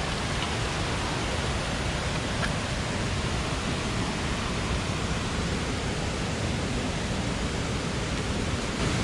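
Steady rushing of a mountain stream, an even water noise with no breaks.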